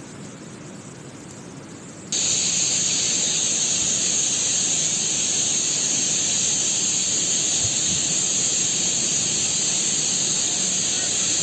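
Floodwater of a swollen river rushing and churning around bridge piers: a steady rushing noise that jumps sharply louder about two seconds in and carries on as a loud hiss.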